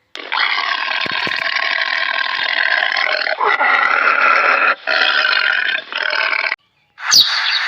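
An animal's long, harsh, throaty calls, four in a row with short breaks between them. The calls stop about six and a half seconds in, and after a brief gap a different sound begins with a sharp chirp.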